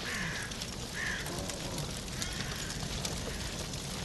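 Crows cawing several times, about a second apart, over a steady patter of rain.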